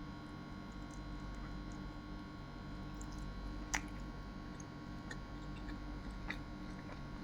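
Quiet room tone: a steady low hum with a few faint, scattered clicks, the loudest about three and a half seconds in.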